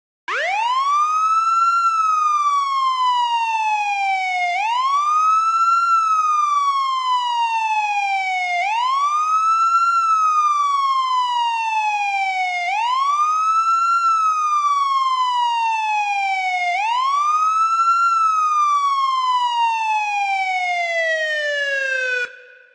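Police siren wailing: the pitch rises quickly, then falls more slowly, about every four seconds, five times over. The last fall runs longer and lower, then the siren cuts off suddenly near the end.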